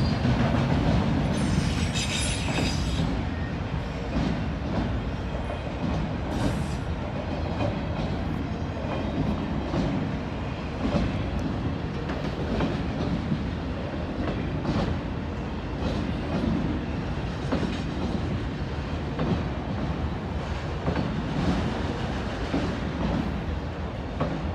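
Freight train of autorack cars rolling past, a steady rumble with the wheels clicking over rail joints. A brief high wheel squeal comes about two seconds in.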